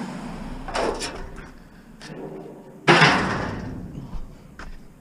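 Pieces of scrap metal being thrown or dropped while loading: a smaller clank about a second in, then a loud metal crash just before the end that rings on and fades.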